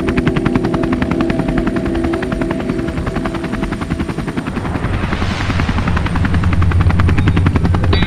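Helicopter rotor blades chopping in a fast, even beat over a steady engine drone. A rushing swell comes about five seconds in, and the rotor grows louder and deeper near the end.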